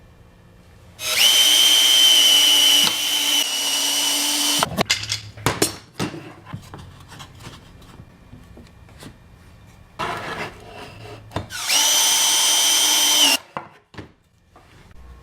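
Power drill driving screws into wooden blocks: the motor whines at a steady pitch for about three and a half seconds, then stops. After some clicks and knocks of handling, it runs again for about two seconds near the end.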